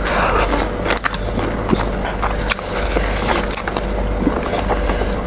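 Noodles being slurped and chewed close to the microphone, with many short wet clicks and smacks.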